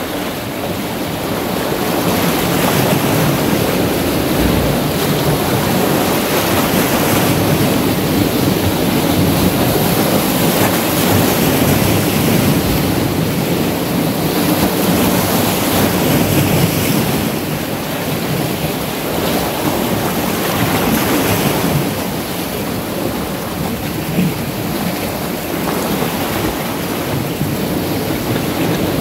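Sea waves washing in and breaking around shoreline boulders in a steady rush of surf. It grows louder a couple of seconds in and eases off a little past the middle.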